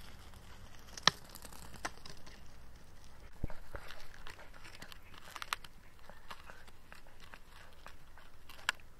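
A dachshund gnawing and biting a dry wooden stick: irregular crunches and sharp cracks of teeth on wood, the loudest crack about a second in.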